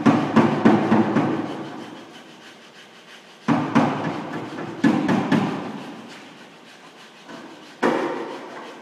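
Panel-beating hammer blows on a pickup's steel rear fender, knocking out dents. The blows come in three runs: several at the start, a few more about 3.5 to 5.5 seconds in, and one near the end. Each run rings out and fades over a second or two.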